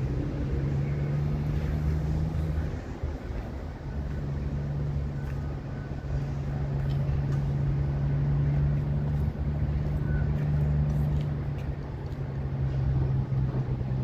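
Diesel-electric locomotives, a 93 class and an NR class, running light engine at low speed: a steady low engine drone that drops away briefly about three seconds in, then carries on.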